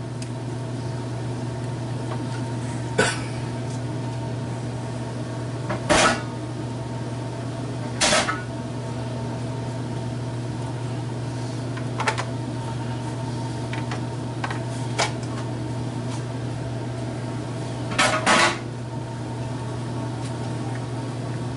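Steady low machine hum of a kitchen appliance, with a handful of sharp plastic knocks and clatters as a plastic vegetable chopper and a knife are handled. Two of the knocks come close together near the end and are the loudest.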